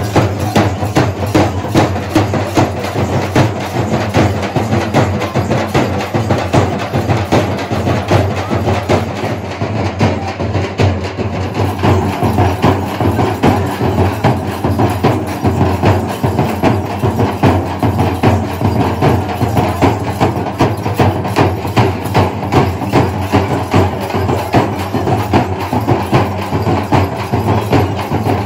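Group of dappu frame drums beaten with sticks in a fast, steady teenmaar rhythm of sharp, cracking strokes.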